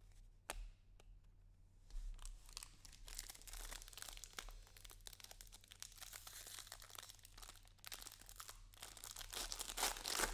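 Foil wrapper of a baseball card pack crinkling and tearing as it is pulled open by hand, starting about two seconds in and loudest near the end.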